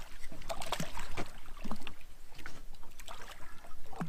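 Irregular knocks, scrapes and splashing at the side of a boat as a hooked catfish is brought to the boat by hand.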